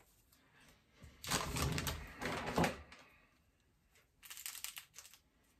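Crinkly rustling of a small flower-food sachet being handled, then a quick run of sharp clicks as scissors snip at it to cut its top off.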